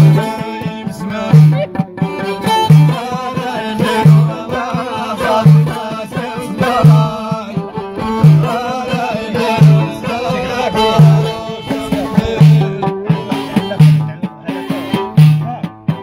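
Amazigh folk music: a violin held upright on the knee plays a wavering melody over a hand frame drum, whose deep stroke falls steadily about every second and a half.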